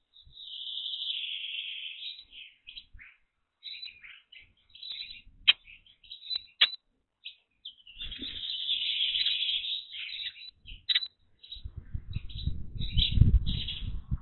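Small songbirds chirping in repeated bursts, with two sharp clicks in the middle and a low rumbling noise building near the end.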